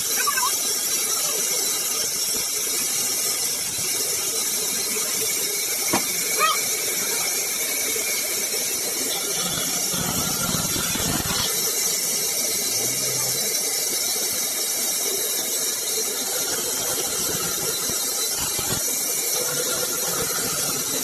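Sawmill saw cutting through wood: a steady, high-pitched hiss that runs on without a break, with a short lower rumble about halfway through.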